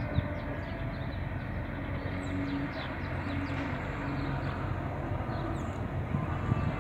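Steady low rumble of road traffic, the engine and tyres of a pickup driving around a roundabout nearby. Faint bird chirps come over it in the first few seconds.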